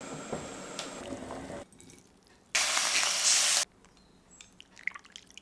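Broth with chicken and mushrooms bubbling in a pot at a simmer, cutting off after about a second and a half. Midway comes a loud hiss lasting about a second that starts and stops abruptly, then a few faint light clicks.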